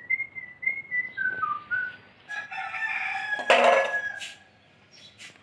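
A few clear whistled notes, then about two seconds in a rooster crows once, a drawn-out call that is the loudest sound here.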